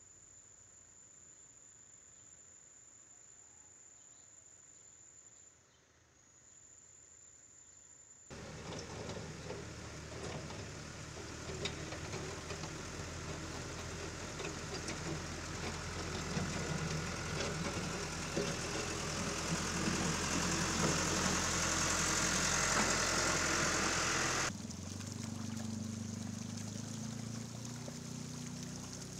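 A backhoe loader's diesel engine running as it drives through floodwater, getting louder toward the end of the shot. After a sudden cut near the end, fast-flowing floodwater rushes over a broken pavement edge. The opening stretch is quiet apart from a faint steady high whine.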